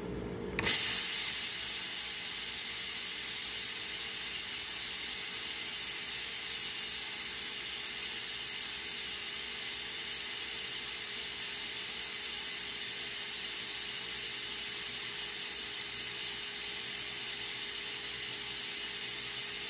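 Laser cutter air assist switched on at its high setting: compressed air hissing steadily, coming on suddenly about half a second in.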